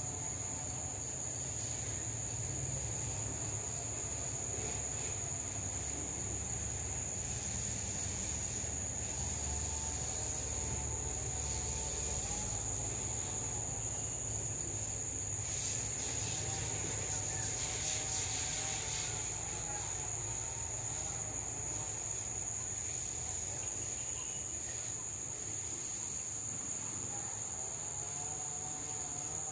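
Insects trilling in a steady, unbroken high-pitched drone, over a faint low rumble.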